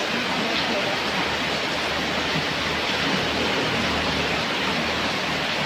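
Steady rain falling, an even hiss. A motorcycle passes on the wet road in the middle, adding a low engine hum.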